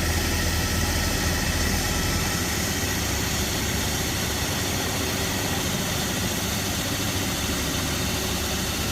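Steady engine noise of construction machinery running on a rock-drilling site, an even rumble and hiss with no distinct strikes or rhythm.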